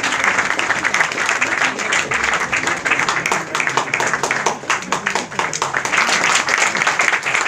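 Audience applauding, many hands clapping steadily, with voices talking over it in the room.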